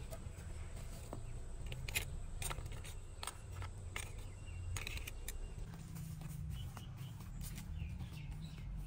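Outdoor ambience: a steady low rumble with scattered sharp clicks and faint bird chirps.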